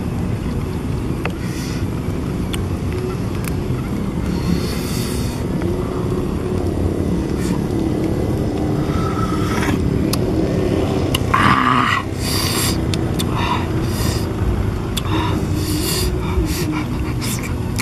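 A steady low rumble with a wavering drone under it throughout, over which come short slurping and smacking sounds of a man eating grilled snail meat, the loudest about eleven and a half seconds in.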